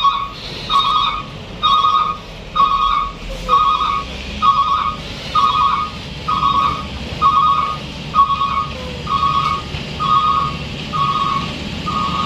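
A heavy vehicle's reversing alarm beeping steadily about once a second, over the low running of a diesel engine.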